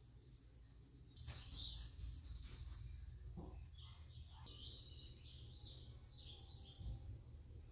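Faint chirping of small birds, short high calls repeated through most of the stretch, over a low steady hum.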